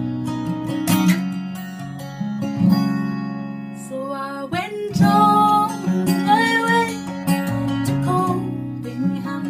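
Acoustic guitar strummed in a steady rhythm, with a woman's solo voice singing over it from about four seconds in: a folk song.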